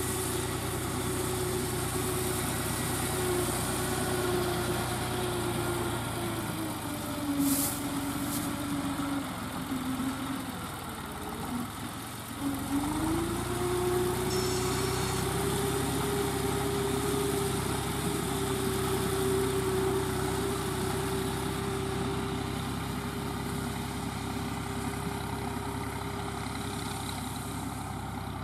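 Deutz D5006 tractor's air-cooled three-cylinder diesel engine running while pulling a round straw baler. The engine note sags for several seconds a little before the middle, drops lowest and then picks back up, with two sharp clicks as it starts to sag.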